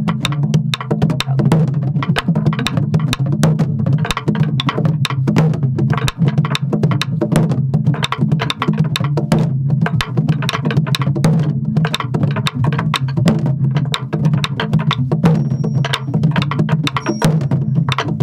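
Korean buk barrel drum played in the jajinmori rhythm: left-palm strokes on the hide and stick strokes clacking on the wooden shell and head, in a quick, steady run.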